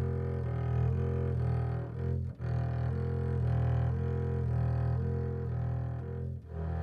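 Background music on a bowed low string instrument playing a melody of held notes, with two short breaks about two and a half seconds in and near the end.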